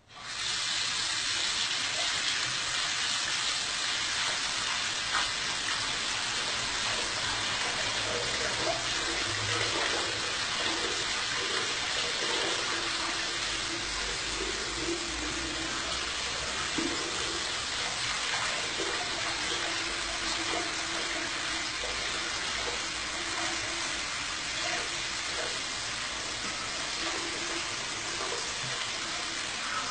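Water running steadily from a bidet tap into the ceramic basin, splashing as it falls.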